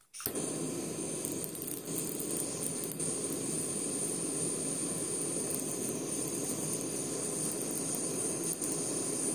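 Steady hissing noise that starts abruptly just after the start and holds unchanged, with a few faint clicks over it.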